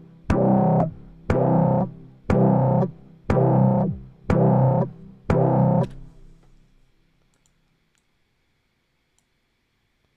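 Synthesizer note played back from a Logic Pro session, repeating about once a second, six times, each with a sharp click at its start, then stopping. A few faint clicks follow.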